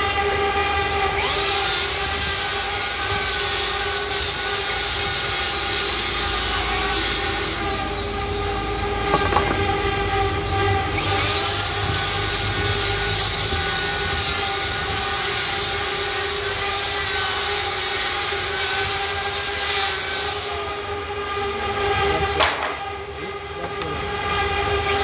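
Hand-held electric grinder with a disc, running against a carved wooden panel: a steady motor whine under a rasping hiss from the disc on the wood. The hiss thins out briefly twice, about eight seconds in and again near the end.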